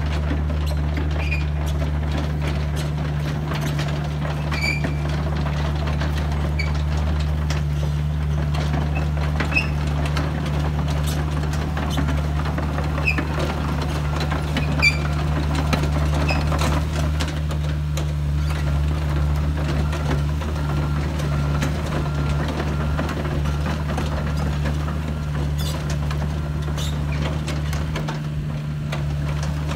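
Komatsu PC80MR-3 midi excavator's diesel engine running at a steady speed while the machine travels and slews. Occasional short high squeaks come through over the engine.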